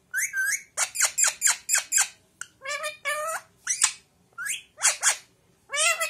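Rose-ringed parakeet calling: a quick run of about fifteen short whistled calls and squawks, several a second with brief pauses, many gliding up or down in pitch.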